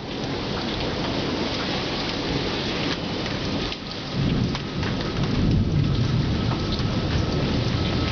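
Steady rain falling, with a low rumble of thunder coming in about halfway through.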